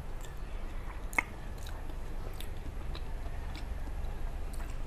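A person chewing food close to a clip-on microphone, with small wet mouth clicks and ticks; one sharp click stands out about a second in.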